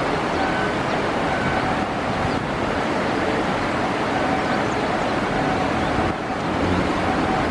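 Freight train cars rolling across a steel girder bridge, a steady rumble and rush blended with the river's rapids below. A faint high tone comes and goes.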